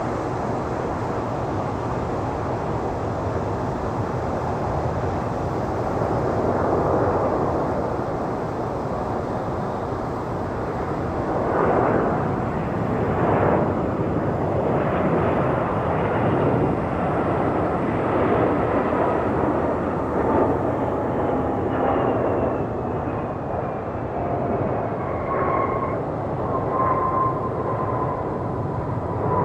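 Airbus A320 airliner's jet engines rumbling as it flies past on arrival, with faint engine whines falling in pitch in the second half as it passes.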